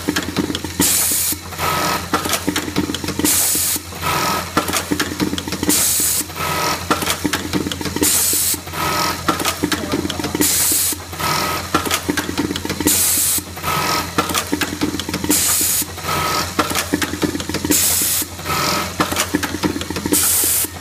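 Automatic button-feeding robot on an industrial button-sewing machine running through its cycles. A steady hum runs under it, there are bursts of rattling stitching, and a sharp air hiss comes about every two and a half seconds as each button is fed and sewn on.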